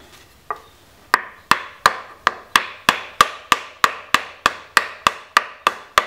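Hammer striking a piece of wood held against the end of a Triumph Scrambler's front axle, knocking the axle out of the wheel hub: one knock, then a steady run of knocks about three a second from about a second in.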